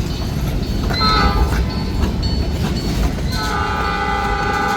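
Freight train rumbling steadily past, with a short horn toot about a second in; about three and a half seconds in a train's multi-tone air horn starts a long, steady blast.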